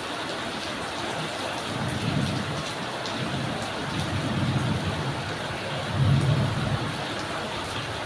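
Drizzling rain falling steadily, with faint scattered drop ticks. Low rumbles swell three times, about two, four and six seconds in, the last being the loudest.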